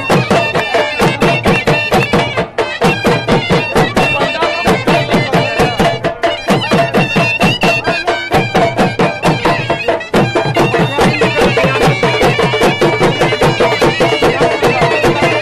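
Live Khattak dance music: dhol drums beaten with sticks in a fast, steady rhythm under a surnai (shawm) playing a reedy, droning melody.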